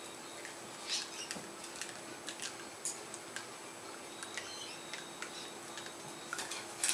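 Small dog gnawing a plastic toothbrush: irregular faint clicks and ticks of teeth on the plastic, with a louder clatter of clicks near the end.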